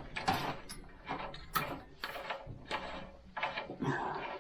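Irregular clicks, knocks and short scrapes of small metal parts being handled during a motorcycle teardown.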